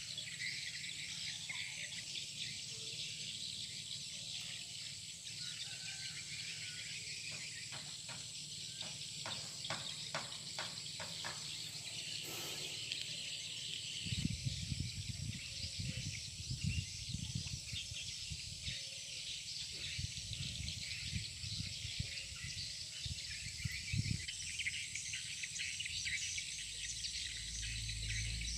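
A steady high insect chorus of crickets or cicadas buzzes with scattered bird calls. A short run of clicks comes about ten seconds in, and low rumbles come and go in the middle stretch.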